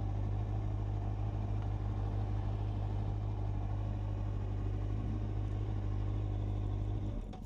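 Motorcycle engine running at a steady speed on the move, a constant low drone with road and wind noise, cutting off suddenly near the end.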